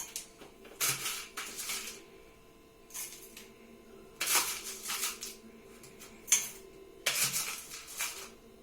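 Ice being spooned into a metal mug: irregular metallic clatters and clinks of the spoon and ice against the mug, about one every second.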